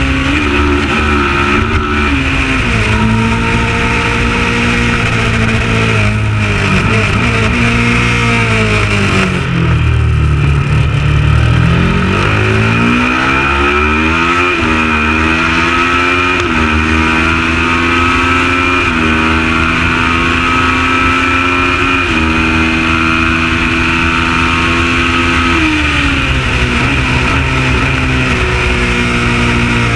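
Kawasaki ER650 parallel-twin engine running hard at race pace. About ten seconds in, its pitch falls steeply as the bike slows, then climbs back in several steps through the gears, and drops again near the end.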